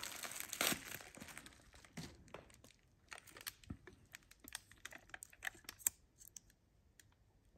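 Plastic bubble-wrap sleeve crinkling and rustling as a metal scooter fork is slid out of it, followed by scattered light clicks and ticks, fading out over the last second or so.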